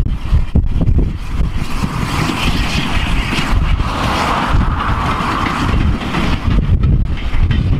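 A steam locomotive hauling a short goods train passes, its running noise swelling to a peak about four to five seconds in and then fading. Strong wind buffets the microphone throughout.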